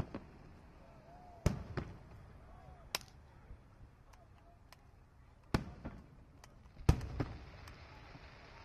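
Aerial fireworks shells bursting: a string of sharp booms a second or two apart, each trailing off in a rumbling echo.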